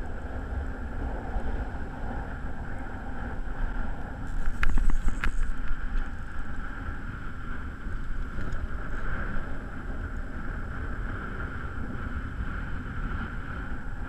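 Strong wind buffeting the microphone, a steady low rumble, with a louder patch and a few sharp clicks about five seconds in.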